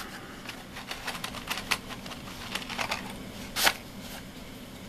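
Small clicks and rustles of a matchbox being handled and a match taken out, with one short scrape about three and a half seconds in.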